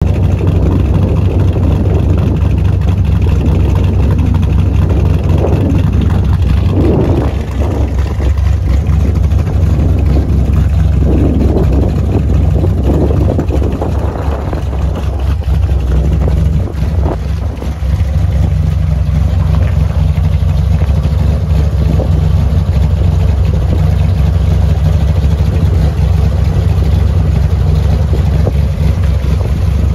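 406 cubic-inch small-block Chevy V8 in a Chevrolet Nova, idling steadily with a low, even run. Wind buffets the microphone in gusts.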